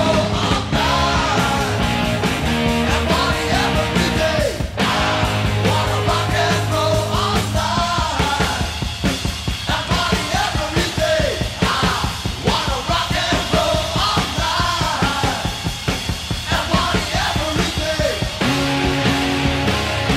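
Rock song with a singing voice over a steady drum beat and sustained bass notes.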